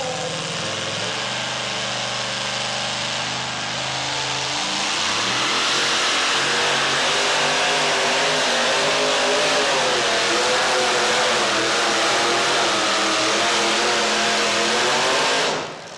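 Modified two-wheel-drive pulling pickup's engine, running steadily at first and then at full throttle from about four seconds in, its pitch wavering as it drags the weight sled down the track. The engine sound cuts off sharply near the end.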